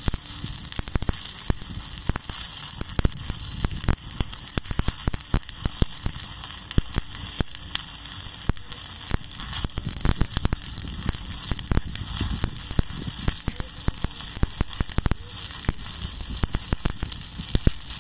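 Shielded metal arc (stick) welding on a mild steel pipe joint: the coated electrode's arc burning with a steady hiss broken by many irregular sharp pops.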